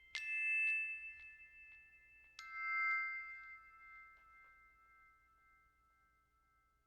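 Two bell-like chime notes struck about two seconds apart, each ringing on with several clear tones and fading away slowly.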